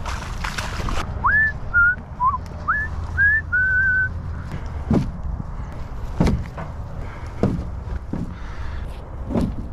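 A person whistles a quick run of about six short notes, each sliding up and then holding, over a steady low wind rumble on the microphone. About five dull thumps follow, spread a second or so apart.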